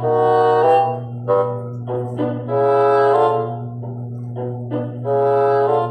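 Short brass-instrument music cue: a few held notes broken by short ones, over a steady low hum.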